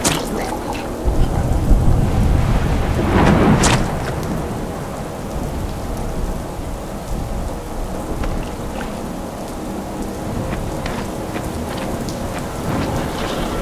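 Steady rain falling, with a rumble of thunder swelling in the first few seconds.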